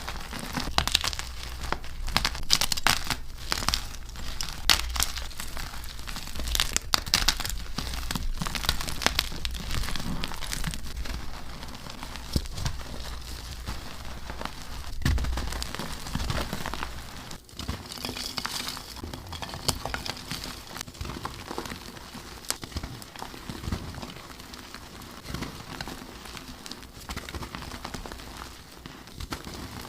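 Gym chalk blocks being crumbled, with dense, irregular crunching and crackling. The crunching is louder and busier at first and turns softer and sparser after about seventeen seconds.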